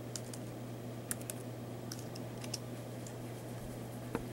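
Typing on a computer keyboard: scattered light key clicks, some in quick groups of two or three, over a steady low hum.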